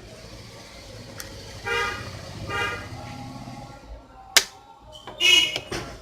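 Two short vehicle-horn honks from passing traffic, about a second apart, over faint traffic noise, followed by a sharp, loud click and another brief honk-like sound near the end.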